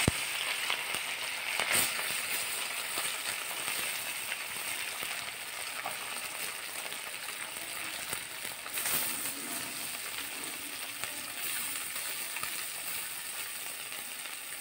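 Small turmeric-and-chilli-coated whole fish sizzling as they fry in hot oil in an iron kadhai: a steady crackling hiss, louder at first, with another brief flare about nine seconds in.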